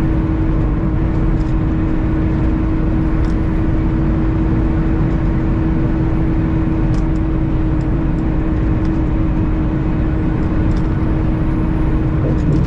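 Semi truck cab at highway cruising speed: a steady drone of engine and road noise with a constant hum note running through it.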